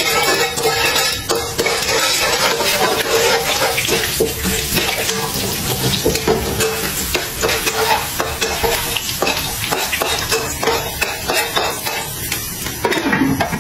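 Popcorn kernels and ginger slices sizzling in hot oil in a wok, stirred and scraped around the pan with a metal spatula.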